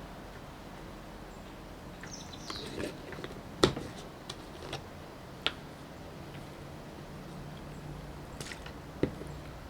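Scattered small clicks, taps and brief rustles from handling a rifle cleaning kit and its patches, with one sharper click a few seconds in and another near the end.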